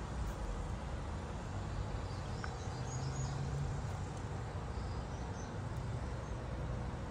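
Outdoor ambience: a steady low rumble with a few faint, short bird chirps a few seconds in.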